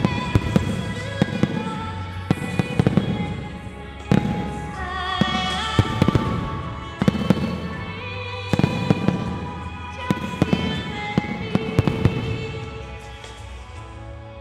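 Aerial fireworks shells bursting in quick succession, one sharp crack or boom after another, a little more sparsely near the end. The bursts sound over music with sustained, held notes.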